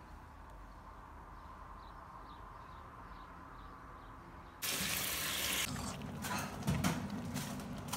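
Faint outdoor quiet with a few faint bird chirps. About four and a half seconds in, a sudden loud water-like hiss starts, then clinks and scrapes of a ladle stirring noodle soup in a steel pot on the stove.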